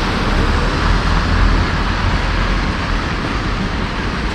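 Street traffic noise: a steady rumble and hiss of vehicles going by, easing off slightly toward the end.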